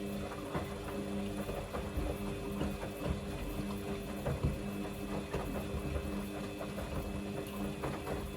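Samsung washing machine running a Darks 40°C cycle: a steady motor hum with dense irregular clicking and sloshing from the drum. It cuts off near the end.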